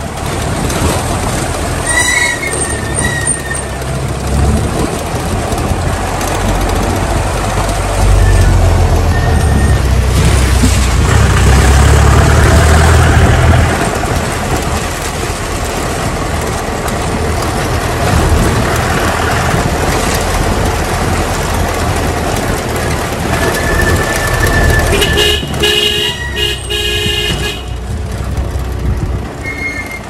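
Gypsy jeep driving along a narrow, rough lane: a continuous low engine and road rumble, heaviest around the middle. A vehicle horn sounds for a couple of seconds near the end.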